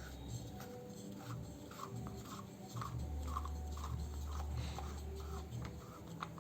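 Plastic side handle of a Black & Decker hammer drill being twisted to clamp it tight: a run of short scraping, rubbing strokes, a few a second.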